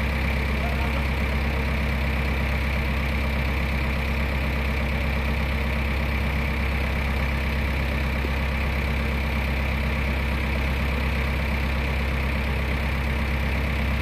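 JCB 3DX backhoe loader's diesel engine idling steadily, a constant low hum with no revving.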